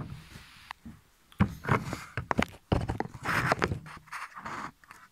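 A series of irregular knocks and bumps with some rustling in between.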